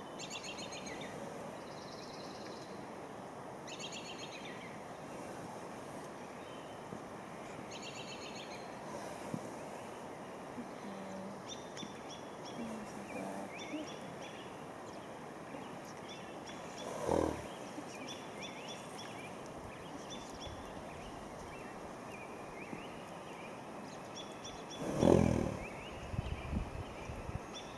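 Songbirds singing repeated short phrases over a steady outdoor background. Twice a horse blows out hard through its nostrils, about two-thirds of the way in and again, louder and longer, near the end.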